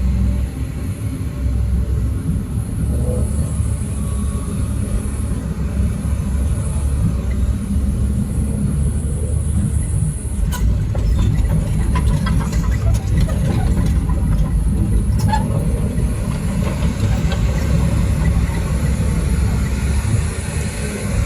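Heavy diesel machinery running with a steady low rumble. About halfway through, a run of sharp clanks and knocks comes through over it for several seconds.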